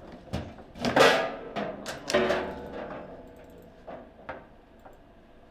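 Foosball table in play: the ball cracking against the plastic players and the table, with rods knocking, in a quick run of sharp impacts loudest about a second in, as a shot goes in for a goal. A few lighter knocks follow, then it dies away.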